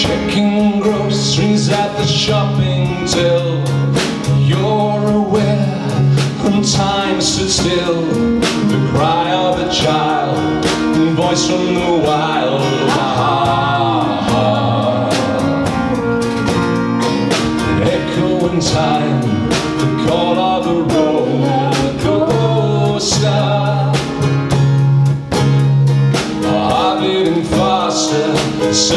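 Live band playing a country-folk song: strummed acoustic guitars, electric bass and drum kit with a steady beat, and singing over them.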